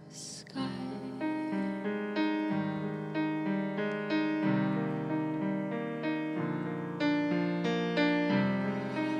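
Yamaha stage keyboard on a piano sound playing an instrumental passage: a slow run of struck notes and chords over low bass notes, growing louder. A short breath into the vocal microphone right at the start.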